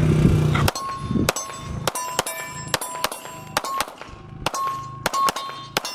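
Pistol fired in a fast string of about a dozen shots, beginning shortly after the start, with a brief pause partway through. Steel targets ring with a clang after the hits.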